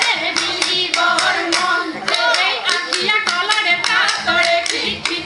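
Group of women singing a Jeng Bihu song in unison to steady rhythmic hand clapping, about three claps a second.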